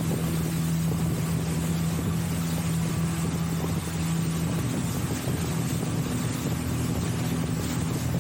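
Boat engine running steadily, heard from aboard; its tone changes about halfway through.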